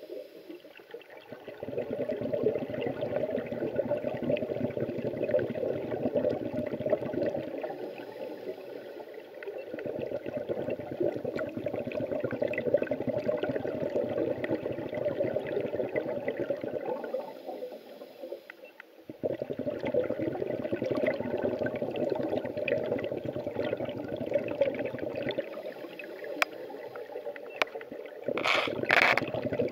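Scuba divers' exhaled bubbles rushing and gurgling out of a regulator, heard underwater. The bubbles come in long bursts of several seconds, four times, with short quieter gaps between breaths. A few sharp clicks come near the end.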